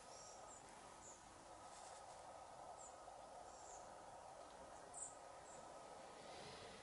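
Near silence: quiet outdoor ambience with faint, short, high chirps scattered through it, the loudest about five seconds in.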